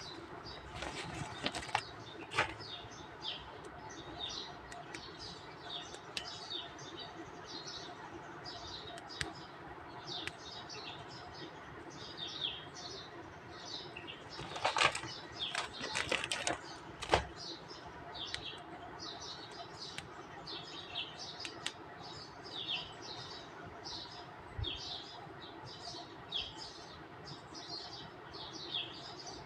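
Small birds chirping in short, repeated high calls, several a second, with a few sharp clicks about halfway through.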